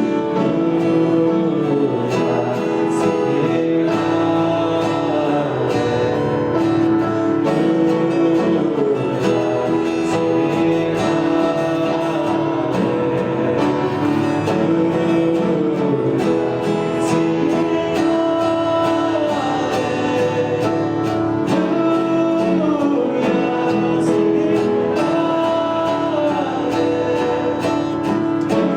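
Worship music: acoustic guitar strumming with voices singing a steady song.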